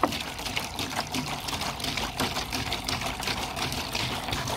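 Water pouring out of the neck of an upturned 19-litre plastic water bottle into a plastic basin. It glugs and splashes in a rapid, irregular stream as air gulps back into the bottle.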